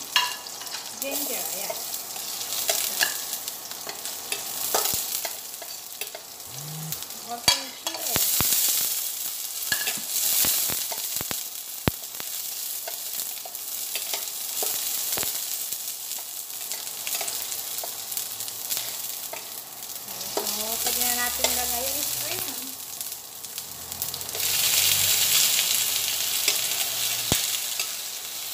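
Garlic and red chili frying in butter in a stainless steel pan, sizzling steadily while a spatula stirs and clicks against the pan. The sizzle swells about a third of the way in and again near the end.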